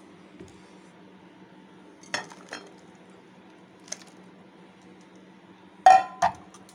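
A spoon clinking and knocking against dishes as curd rice is served into a ceramic bowl. There are a few light clinks around two and four seconds in, and two louder knocks about six seconds in.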